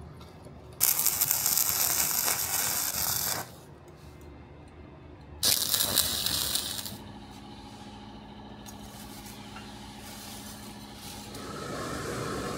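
Two loud bursts of harsh workshop power-tool noise on metal, the first about two and a half seconds long and the second about a second and a half. A quieter steady machine hum follows.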